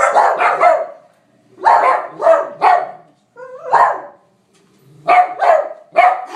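Dog barking in quick runs of two to four barks, with short pauses between the runs.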